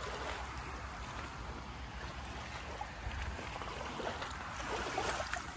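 Water lapping and trickling, steady and fairly quiet, over a low rumble.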